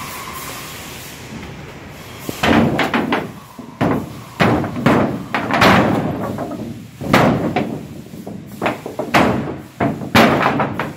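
Work boots stomping on the crushed aluminium bottom of a Sportspal canoe. Starting about two seconds in, there is a string of a dozen or more heavy thuds, each with a ringing metallic tail, as the bent keel is pushed back out into shape.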